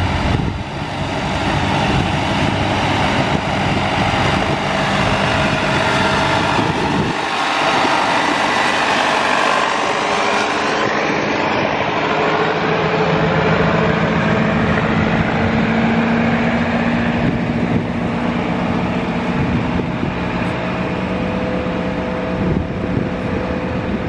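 Vintage green John Deere-style tractor engine running as it drives past close by, a dense low pulsing that drops away about seven seconds in. A steadier engine hum with a faint drawn-out tone follows.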